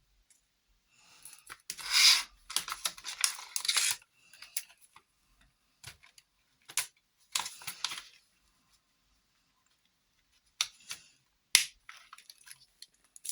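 Objects being handled: irregular rustling and crinkling, loudest about two seconds in, with scattered clicks and a sharp tap near the end.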